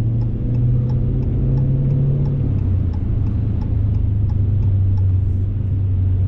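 Car interior sound while driving in traffic: a steady low engine and road hum that drops slightly in pitch about two and a half seconds in. A faint, regular light ticking runs over it at about three ticks a second.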